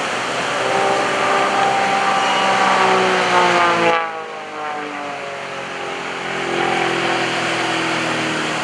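Pitts S-1S aerobatic biplane's four-cylinder engine and propeller running at power, its pitch sliding down over the first few seconds. About four seconds in the sound changes abruptly, and the pitch then rises slowly. A steady rushing hiss runs underneath.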